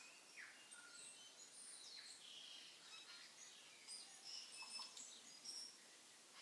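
Faint bird chirps and short twittering calls over a steady hiss. The calls come thickest a little past the middle.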